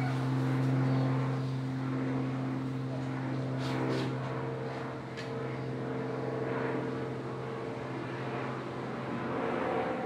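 Steady low machine drone with a constant pitch, fading near the end, with a few short clicks about four seconds in.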